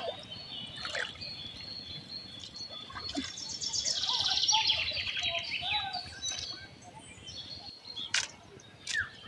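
Birds calling, with one fast trill that falls in pitch about four seconds in, over a steady high-pitched call; a few sharp clicks near the end.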